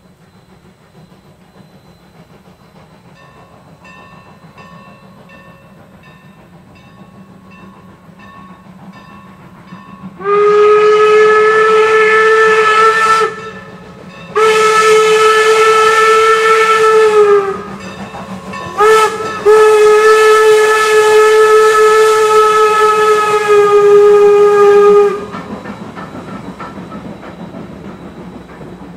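Steam locomotive whistle blowing the grade-crossing signal of two long blasts, a short toot and a final long blast, starting about ten seconds in. Before it the approaching train makes a faint rhythmic sound, and after it the passenger cars roll by on the rails.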